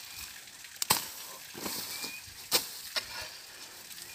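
A large, wide-bladed hoe chopping into grassy soil to clear weeds: a few sharp strikes, roughly a second apart.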